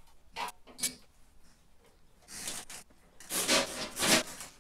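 Short rubbing and scraping noises of hands working on a motorcycle, the loudest a longer stretch of scraping about three and a half to four seconds in.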